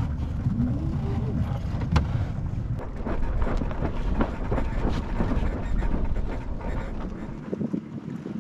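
Wind rumbling over the microphone and water splashing at the hull of a small gaff-rigged sailing boat under way, with a short rising tone about a second in and a sharp knock about two seconds in. The rumble eases near the end.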